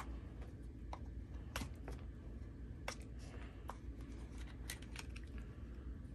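Light, irregular plastic clicks and taps from a 1/24 scale mini rock crawler being turned over and handled, its plastic chassis, wheels and battery compartment knocking under the fingers.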